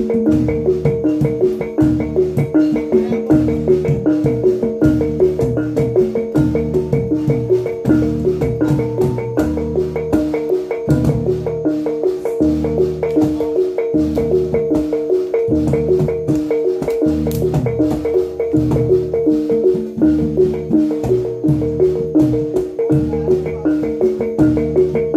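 Javanese gamelan accompaniment for jatilan dance: bronze kettle gongs play a fast repeating pattern over a ringing gong tone, with a low drum-and-gong beat about once a second.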